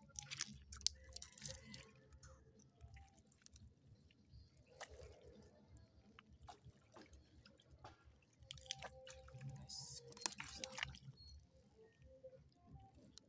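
Faint, irregular splashing and squelching of water and wet mud, with scattered clicks, in two spells: one at the start and one about two-thirds of the way in.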